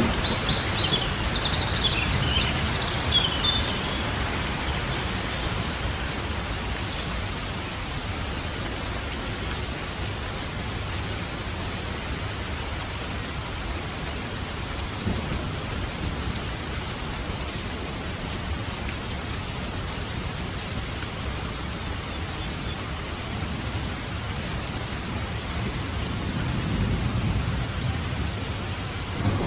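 Steady rain falling, with a low rumble of distant thunder underneath that swells near the end. Birds chirp briefly over the rain in the first few seconds.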